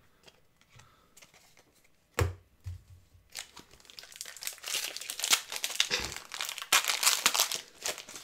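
A single thump about two seconds in, then a foil Pokémon card booster pack wrapper being torn open and crinkled for several seconds, loudest towards the end.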